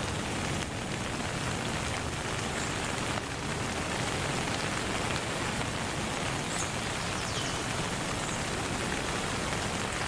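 Steady rain falling, an even hiss with no let-up, with a few faint high bird chirps scattered through it.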